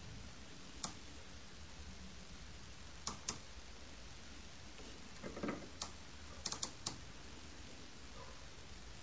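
Sharp small metal clicks from a micrometer being worked on a steel bar in a lathe chuck: one about a second in, two in quick succession near three seconds, then one more and a quick run of three near the end, with a soft handling rustle just before them.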